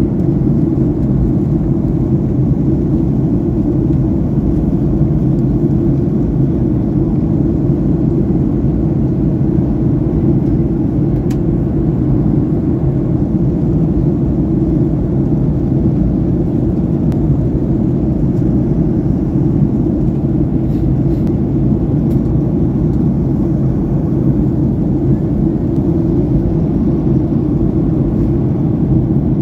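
Steady low rumble inside the passenger cabin of a Boeing 737-800 in flight: the CFM56 turbofan engines and the airflow over the fuselage, even and unchanging.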